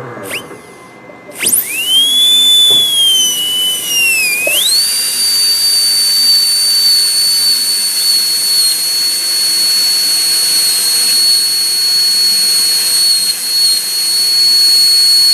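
High-speed air-turbine dental handpiece with a 330 bur cutting depth cuts into the tooth's pits. Its whine starts about a second and a half in and wavers and sags in pitch for a few seconds, then holds a steady high pitch.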